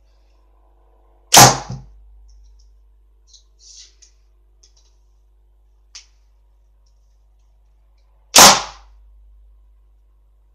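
Two arrows shot from a bow at close range into hard cardboard, about seven seconds apart. Each shot is a sharp crack of the release and the field-tipped arrow striking the cardboard, followed by a smaller knock and a short fading tail. Faint small clicks come in between.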